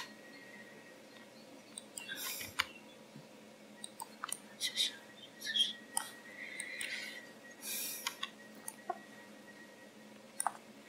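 Scattered computer mouse and keyboard clicks, with a few soft, brief hissing sounds between them.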